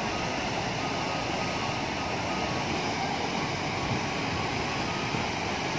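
Snow-fed mountain stream rushing over boulders as white water, a steady rushing noise.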